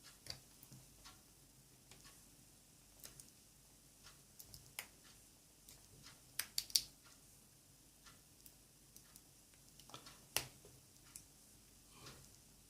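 Faint, scattered clicks and small scrapes of plastic parts being pried open and handled while opening the protection-circuit casing of a lithium-ion battery pack, with a cluster of sharper clicks about halfway through and one more sharp click near the end.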